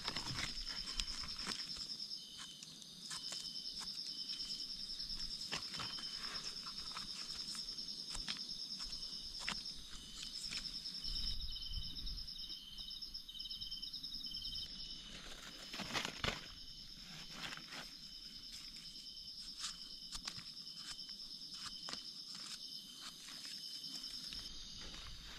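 Night insects trilling steadily in a high, fast-pulsing chirr, with a second, lower insect calling in short repeated phrases. Over them come scattered clicks, scrapes and rustles of a knife and gloved hands digging in soil and dry leaves, the loudest about sixteen seconds in.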